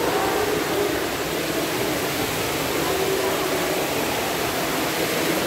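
Steady rush of water pouring from a row of spouts in a rock wall into a thermal bath pool.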